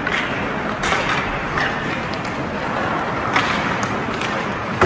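Ice hockey play: skate blades scraping the ice with a steady hiss, broken by sharp clacks of sticks on the puck, the loudest near the end.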